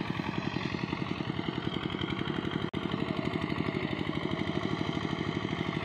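A small engine running steadily at a constant speed with a fast, even putter. It cuts out for an instant near the middle.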